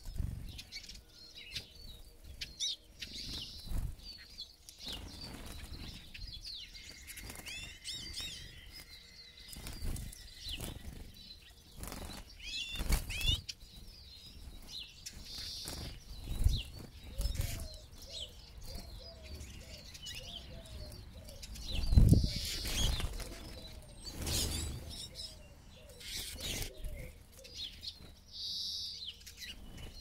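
A flock of Eurasian siskins at seed feeders: repeated bursts of wing flapping as birds fly in and out, the loudest about two-thirds of the way through, over high chirping and twittering calls.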